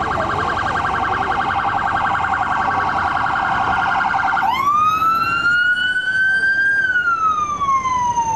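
Police escort vehicle's electronic siren, first a rapid warble, then about halfway through switching to a slow wail that rises and then falls away steadily.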